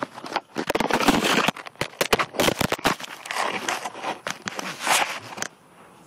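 Handling noise from a phone being moved and covered: irregular rustling, crackling and scraping against the microphone, which stops suddenly about five and a half seconds in, leaving a faint steady hiss.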